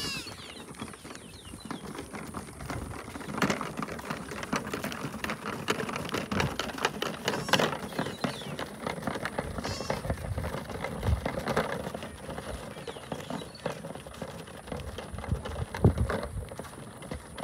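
Livestock bleating a few times: once right at the start and again about halfway through, over scattered knocks and clatter.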